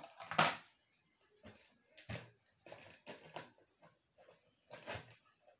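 Irregular clicks and knocks from a plastic fan-type LED bulb being handled: its folding blades and housing tapping and shifting in the hands and against the table. The loudest knock comes about half a second in.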